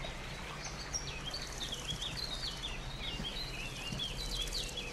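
A small bird chirping in quick runs of short, high, jumping notes over a steady low rumble of street traffic.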